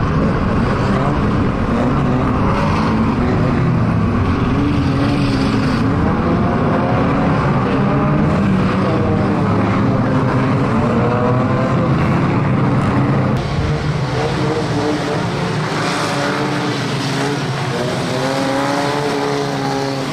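Engines of a pack of pre-1975 classic saloon stock cars racing around a shale oval, several overlapping engine notes rising and falling as the cars lift off and accelerate through the bends. The sound gets a little quieter about two-thirds of the way through.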